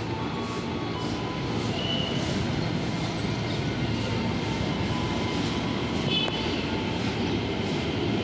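Ex-JR electric commuter train pulling out of the station: a steady rumble of motors and wheels that grows slowly louder, with faint irregular clicks and a brief high squeak about six seconds in.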